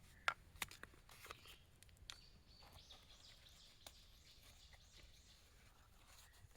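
Quiet outdoor ambience: a handful of sharp clicks or taps in the first two seconds and one more near the middle, with faint bird chirps in the background.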